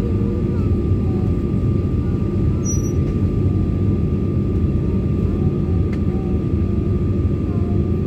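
Jet airliner cabin noise on the ground: a steady, loud low rumble from the engines and airflow, with a thin constant whine above it.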